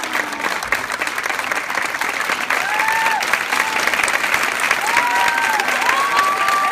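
Audience clapping, with several high voices whooping over it, more of them in the second half.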